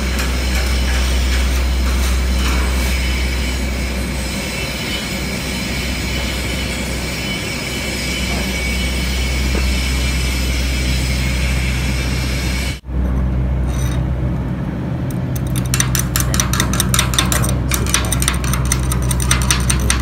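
Steady workshop hum and rumble, broken by a brief dropout past the middle; about three seconds later comes a fast run of sharp taps as the slag crust is knocked off a freshly laid stick-weld corner bead.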